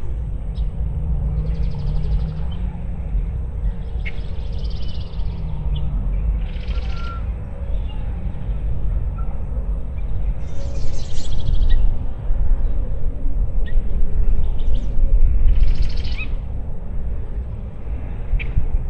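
Outdoor lakeside ambience: wind buffets the microphone with a steady low rumble, while a bird gives short, raspy chattering calls about five times, a few seconds apart.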